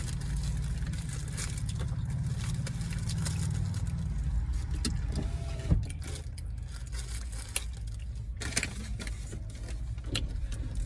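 Steady low rumble of a parked car with its engine running, heard from inside the cabin, with scattered clicks and rustles of food packaging being handled.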